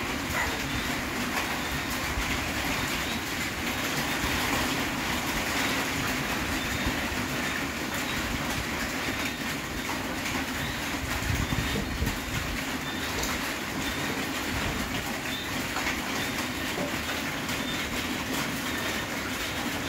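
Dense, continuous chorus of frogs and toads calling on a rainy night, a steady pulsing din.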